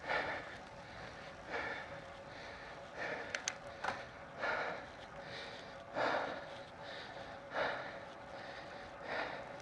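A cyclist's heavy breathing close to the microphone, one exhale about every second and a half, with a couple of light clicks a little past three seconds in.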